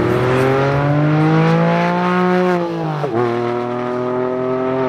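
Porsche 911 (997 Carrera S) flat-six engine through a muffler-delete straight-pipe exhaust, accelerating hard with its pitch climbing, then dropping sharply about three seconds in and holding steady after.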